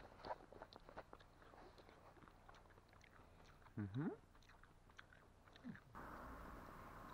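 Faint chewing with small crunches and clicks, as berries are eaten. A brief low hum-like voice sound comes about four seconds in, and near the end a steady soft hiss takes over.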